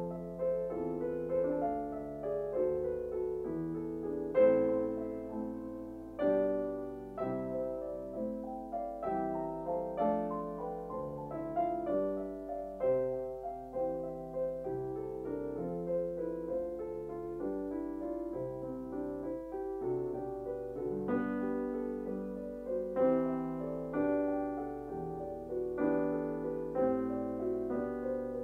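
Background piano music: a steady flow of struck notes that ring and fade.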